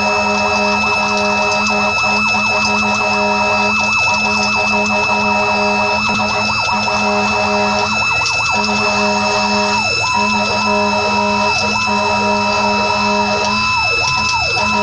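Fire apparatus siren sounding: a steady held tone that breaks off briefly every couple of seconds, joined from about ten seconds in by quick up-and-down pitch sweeps.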